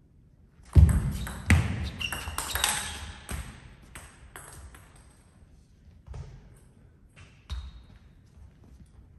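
A few heavy thuds with a loud rustling clatter starting about a second in and lasting a couple of seconds, followed by scattered light clicks of a table tennis ball and footsteps in a large hall between rallies.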